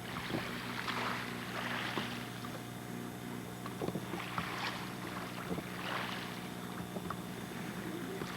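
Small waves washing on the shore, swelling and fading about once a second, over a steady low hum.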